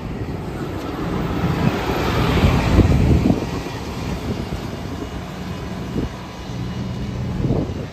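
Double-decker bus passing close by, engine and tyre noise swelling to a peak about two to three seconds in, then fading as it drives away.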